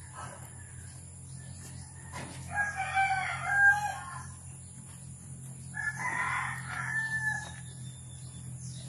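A rooster crowing twice, each crow about a second and a half long, a couple of seconds apart.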